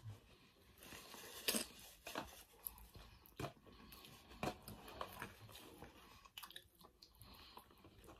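Two people chewing food with their mouths close to the microphone: faint, irregular wet smacks and clicks, a few sharper ones spread through.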